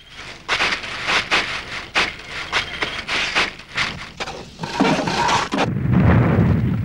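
Battle sound: an irregular run of sharp gunshots, then a heavier blast with a low rumble about five seconds in.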